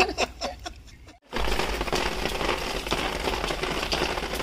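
Hands squishing marinated raw mutton in a steel plate, then after an abrupt cut a wood fire crackling steadily in a ground fire pit under an empty steel cooking pot.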